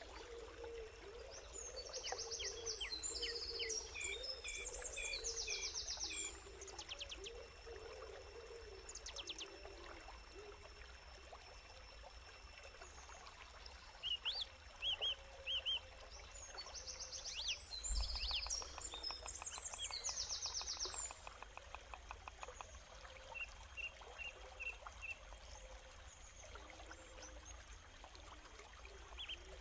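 Several birds chirping and trilling over a faint steady background, with two bursts of rapid high calls and short runs of chirps between them. A single low thump about halfway through.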